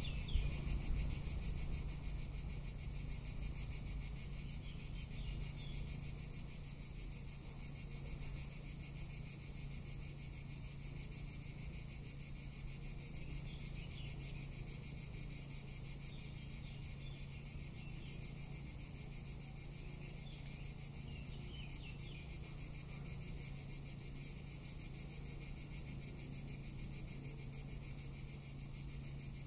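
Cicadas singing: a steady, high, dense buzz made of very rapid pulses.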